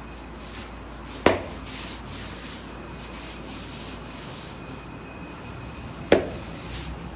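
Barber's hands rubbing over hair and skin during a head massage, with two sharp smacks about five seconds apart, the first just over a second in.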